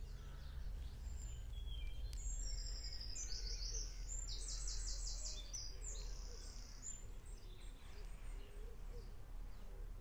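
A small songbird singing: quick trills of rapid high repeated notes for several seconds in the middle, over a steady low rumble.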